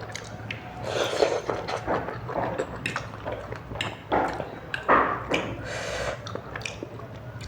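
A person chewing and slurping food close to the microphone: wet, smacking mouth sounds that come irregularly, with short clicks in between.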